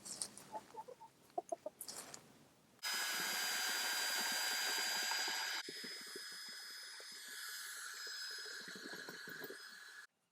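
Chickens clucking. About three seconds in, a loud steady high hiss with a thin whistling tone cuts in, drops to a quieter hiss about halfway, and stops abruptly near the end.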